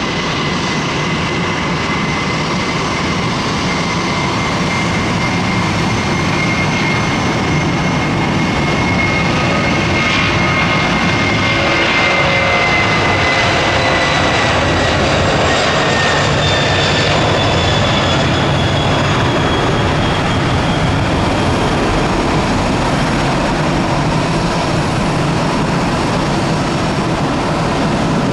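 Airbus A310 twin jet engines at takeoff thrust as the airliner rolls down the runway and lifts off: a loud, steady jet roar with a high whine that glides down in pitch from about halfway through as the aircraft passes.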